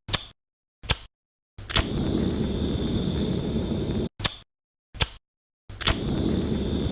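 Zippo lighter being opened, struck and closed: sharp metallic clicks of the lid, then a click followed by about two seconds of steady flame noise that stops abruptly, followed by the lid snapping shut; the cycle begins again near the end.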